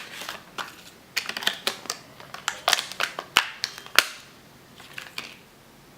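Fidget spinner packaging being opened by hand: an irregular run of sharp clicks and crinkles that dies away after about four seconds.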